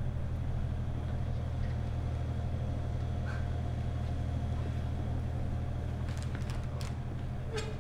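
Steady low machine hum with no change in pitch or level, and a few faint sharp clicks near the end.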